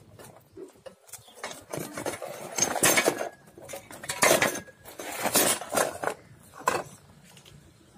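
Metal clutch parts clinking and clanking as a clutch pressure plate is handled and shifted among loose clutch pieces: a string of irregular knocks, the loudest about three, four and a half and five and a half seconds in.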